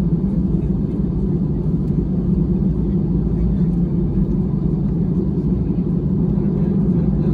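Steady low rumble that holds even throughout, with no clear rise or fall.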